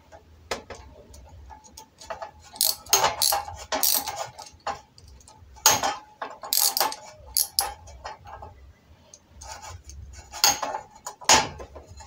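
Brass gas pipes and fittings being handled and fastened on a steel stove frame: irregular metal clicks, taps and scrapes in several short runs.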